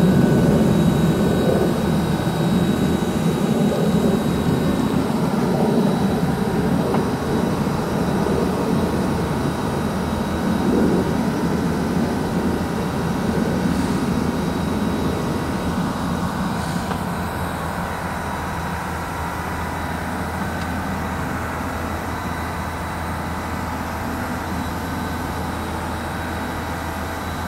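Ingersoll Rand CM470 crawler drill rig's diesel engine running steadily while the hydraulic drill mast and boom are moved. The sound is louder and more uneven for the first dozen seconds, then eases to a steadier, slightly quieter run.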